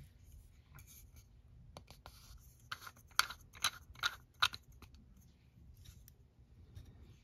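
Nail-art stamping tools scraping against a metal stamping plate: about five short, sharp scraping strokes in quick succession, roughly two a second, after a single soft knock at the start.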